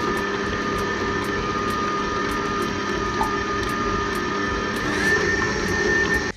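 Electric stand mixer running at a steady speed, its flat beater churning a wet butter, sugar and egg mixture in a steel bowl: an even motor hum with a steady whine on top.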